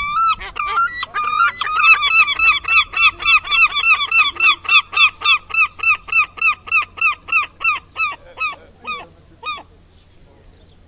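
A gull calling: a long, fast series of short repeated calls, about four a second, slowing to a few spaced calls and stopping about nine and a half seconds in.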